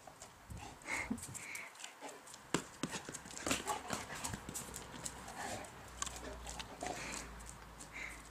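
German shepherd's claws clicking and tapping irregularly on brick paving as it walks and trots about.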